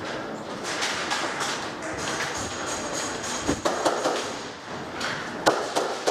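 Scattered sharp clicks and cracks of airsoft gunfire and BBs striking nearby surfaces. The loudest snaps come about three and a half to four seconds in and again about five and a half seconds in.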